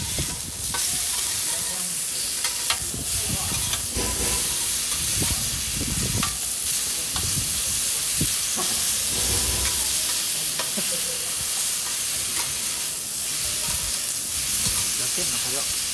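Thinly sliced meat sizzling steadily on a flat iron griddle plate over a wood fire, with a spatula scraping the plate as the meat is stirred and turned. Scattered sharp clicks sound through the hiss.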